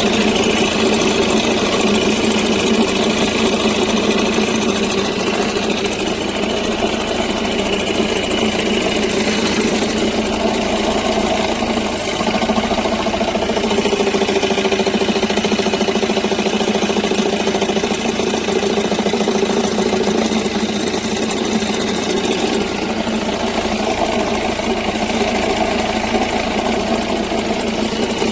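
Audi Q5 engine idling steadily with a knocking rattle from the flywheel: the flywheel noise the car was brought in for.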